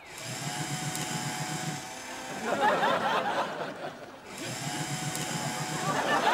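Electric paper shredder running: its motor hums and whines, then about two and a half seconds in it crunches and crackles through a paper flag. The motor hum returns and a second crunch of paper starts near the end.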